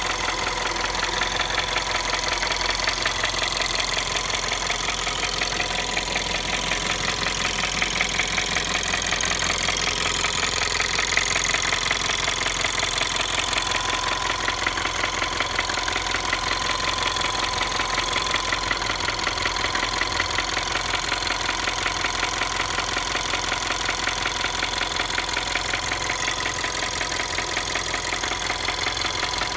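Volkswagen 1.2 TSI EA111 four-cylinder turbocharged petrol engine running steadily with a rapid, even knocking clatter that sounds like a diesel. The owner does not know its cause.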